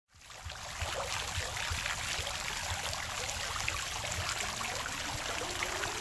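Tiered garden fountain: water spilling off the basin rim and splashing in a steady patter of many drops, fading in over the first second. Near the end a tone slowly rising in pitch comes in.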